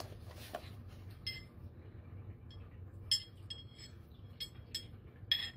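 Steel knife blades clinking against each other as a set of knives is handled: a string of light metallic clinks with a short ring, the sharpest about three seconds in and near the end.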